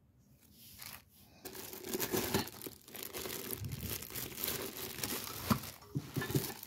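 Clear plastic wrapping crinkling as it is handled and pulled about, starting about a second and a half in and going on irregularly.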